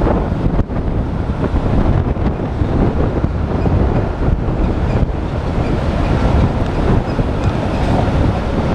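Steady rumble of wind buffeting the microphone and road noise from a car driving along a highway.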